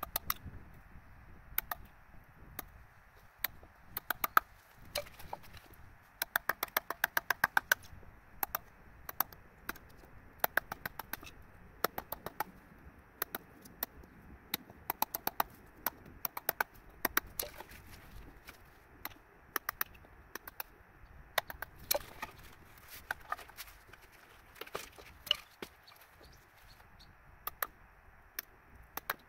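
Hammer striking a chisel: sharp, irregular knocks, with a quick run of taps at about six a second a quarter of the way in.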